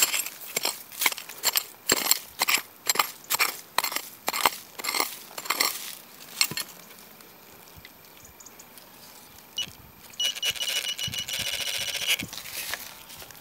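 Metal detector signalling over buried metal: a rapid run of short, sharp beeps, about three a second, for the first six seconds, then a steady high tone lasting about two seconds near the end.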